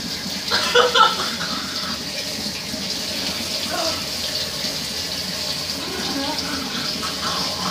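Kitchen faucet running steadily into a stainless steel sink as someone drinks from the stream to cool a mouth burning from hot wings. Short vocal cries break in about a second in, with more voice near the end.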